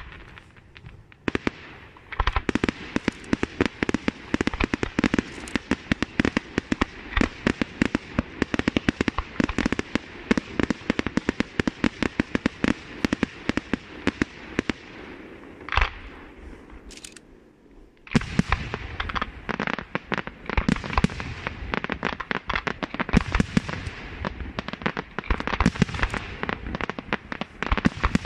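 Aerial fireworks display: a dense, rapid string of sharp bangs and reports. They break off for a couple of seconds after one louder bang about halfway through, then resume just as densely.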